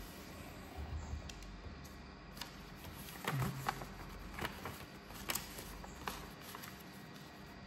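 A sheet of A5 paper being handled, folded and creased by hand: scattered crinkles and sharp paper crackles, loudest a little over three seconds in.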